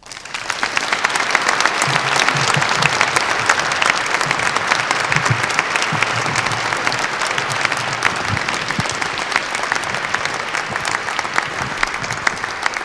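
A large audience applauding: clapping starts suddenly, builds over the first two seconds, then holds steady and eases slightly toward the end.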